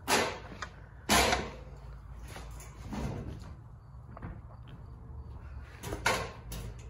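Aluminium extension ladder knocking and scraping against the barn's wooden beams and wall as it is raised and leaned into place: two loud knocks at the start and about a second in, a softer one near the middle, and another near the end.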